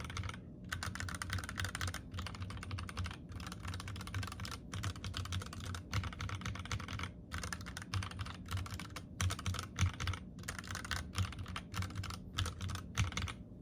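Fast typing on a mechanical keyboard, a hotswap Minivan with a steel plate: a dense run of key clicks and clacks broken by short pauses about every second.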